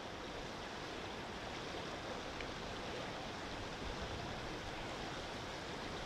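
Steady, even outdoor noise of wind, with no distinct calls or other events.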